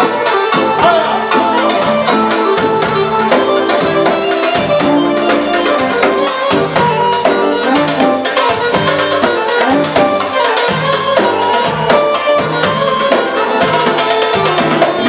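Live Arabic band music with a keyboard melody over a fast, steady beat from a drum kit and a hand frame drum.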